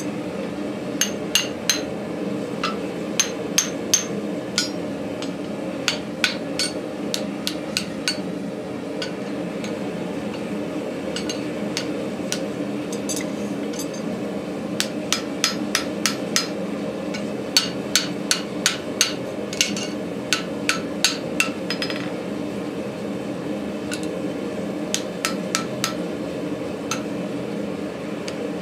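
Hand hammer striking a hot cable-Damascus steel axe head on the anvil, in runs of quick, ringing blows with short pauses between them. A steady hum runs underneath.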